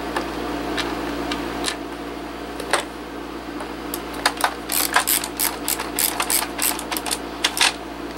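Light clicks and rattles of small parts being handled on the underside of a mechanical keyboard's plastic case: a few separate clicks at first, then a quick irregular run of clicks from about halfway through.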